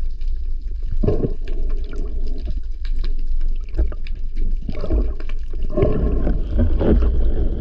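Muffled underwater water noise: a steady low rumble with gurgling and scattered short clicks and knocks.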